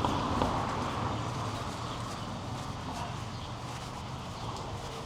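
Footsteps of someone walking at an even pace, about two steps a second, over a steady low background rumble.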